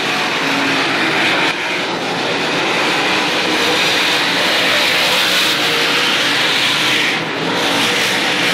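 Engines of a field of dirt-track race cars running laps together, a loud, steady blare that dips briefly twice.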